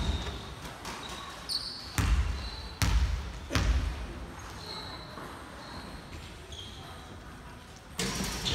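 Basketball bounced on a wooden gym floor in a reverberant hall: one thud at the start, then three more about 0.8 s apart a couple of seconds in, the free-throw shooter's dribble before the shot.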